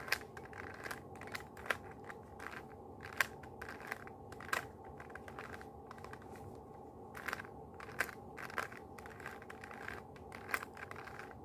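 A plastic Rubik's cube being twisted by hand: irregular sharp clicks and clacks as its layers turn, over a faint steady hum.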